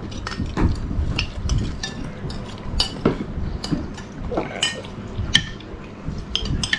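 Metal spoons clinking against ceramic plates of rice as children eat, in many short, irregular taps.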